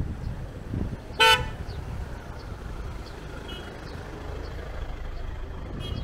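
A single short, loud horn toot about a second in, with a fainter brief toot near the end, over a steady low outdoor rumble.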